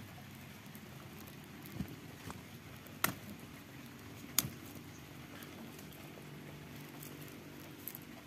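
Handling of a sword in a leather scabbard: a few sharp clicks, the two loudest about three and four and a half seconds in, over a steady low background hum.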